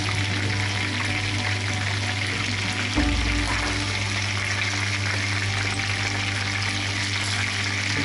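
Chicken wings shallow-frying in a pan of hot oil, a steady dense sizzle and crackle, with a brief low thump about three seconds in.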